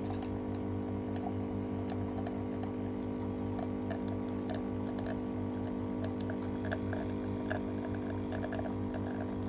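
Hibrew home espresso machine's pump humming steadily while brewing, with faint irregular ticks over the drone.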